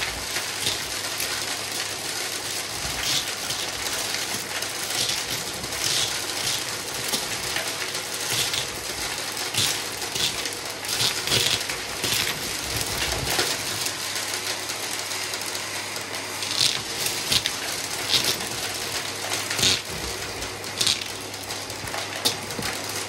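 Vacuum cleaner running steadily with a constant motor hum, broken by irregular short, high crackles.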